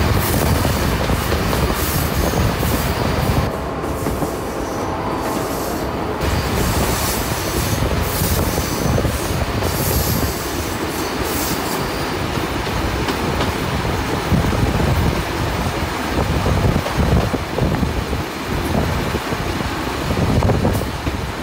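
Passenger carriages of a steam-hauled train running over the rails on a curve: a steady rumble of wheels on track, with thin high wheel-flange squeals that come and go.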